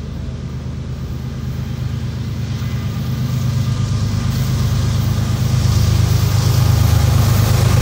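Two Norfolk Southern diesel locomotives heading an intermodal train approach, their engines' low drone growing steadily louder as they near.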